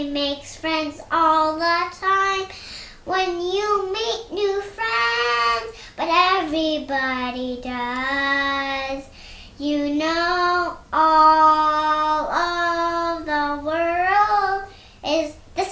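A young girl singing alone without accompaniment, in phrases of held, sliding notes broken by short pauses for breath.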